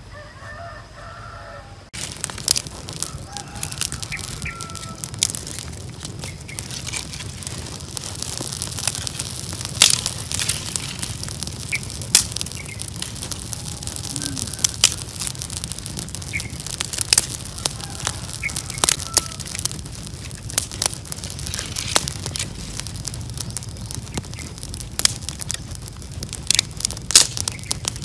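Small campfire of dry twigs burning fiercely, crackling and popping irregularly over a steady rushing of flame. It starts suddenly about two seconds in, after a short stretch of birds chirping, and birds still chirp now and then behind it.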